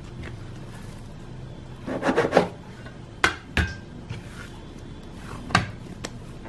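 Stainless steel bench scraper scraping on a silicone mat as it cuts through and separates bread dough, then hands handling the soft dough. There are a few short, sharp knocks: twice a little after three seconds and once more near the end.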